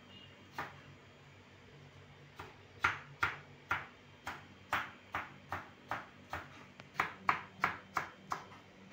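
Kitchen knife chopping green capsicum on a plastic cutting board: a steady run of sharp knocks, about two to three a second, starting about two seconds in.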